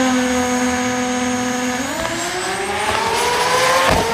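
Drag car engine holding a steady pitch on the start line, then launching about two seconds in, its note climbing as the car accelerates down the strip. A sharp break comes near the end.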